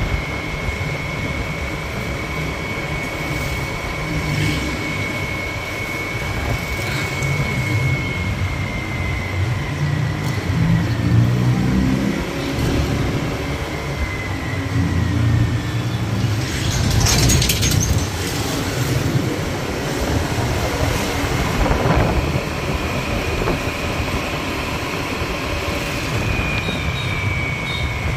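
Motor scooter being ridden at steady speed along a street: engine and road noise with a thin, steady high whine that sags a little in pitch now and then. A brief rush of noise about 17 seconds in.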